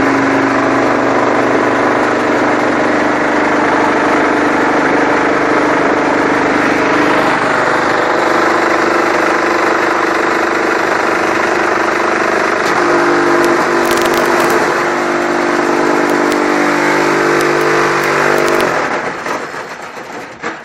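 Semi-automatic brick-making machine running: a loud, steady mechanical hum with motor tones that shift about seven and again about thirteen seconds in, dying away near the end.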